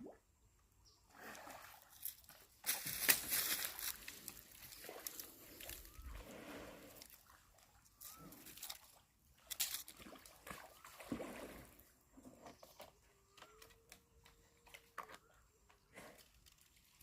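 Water sloshing and splashing in irregular bursts, the loudest about three seconds in, then quieter trickling.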